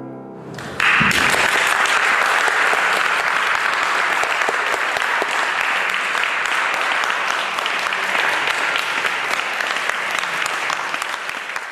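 The last piano chord dies away, then an audience claps steadily, starting about a second in and thinning out near the end.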